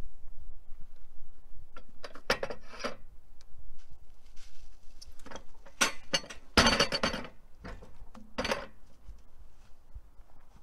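A pine log rolled and shifted on a chainsaw mill's steel bunks: irregular knocks and metallic clinks of wood against metal, with a longer scrape a little past the middle.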